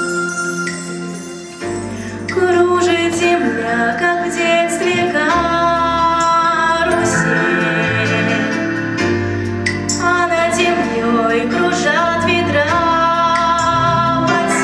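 A girl singing a melodic song with vibrato over a recorded instrumental backing track, which begins in full about two seconds in.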